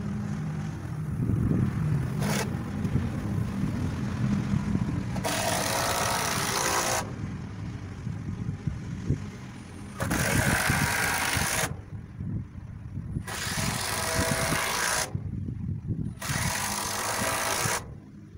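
Wheel loader's engine running with a steady low rumble, while a power tool runs in four separate bursts of about two seconds each.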